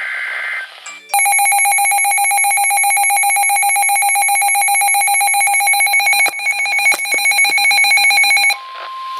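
Emergency Alert System tones for a severe thunderstorm warning. A short data burst ends, then a loud two-tone attention signal holds for about seven seconds. Near the end it gives way to a steady single tone near 1 kHz, the National Weather Service warning alarm tone.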